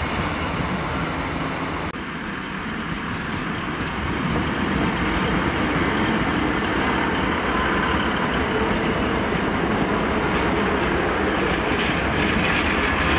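Diesel multiple-unit train, a Class 150 Sprinter coupled to a Class 142 Pacer, running past close by on the rails; its engines and wheels get louder about four seconds in.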